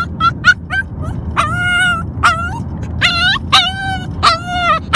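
Puppy crying in a plastic crate: a quick run of short yelps, then about five longer, high, wavering whines, distressed at being shut in. A steady low rumble of the car driving lies underneath.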